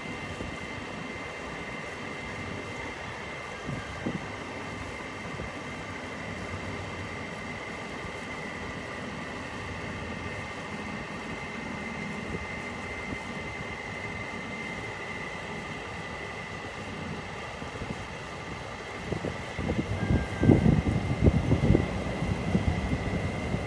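Steady outdoor background hum with a few faint high steady tones. Wind buffets the microphone in irregular gusts near the end.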